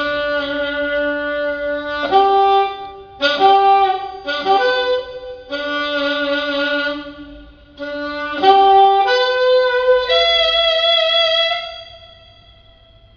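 A solo saxophone plays a slow line of long held notes alone during a band's sound check, in short phrases with brief gaps. The last note fades out near the end.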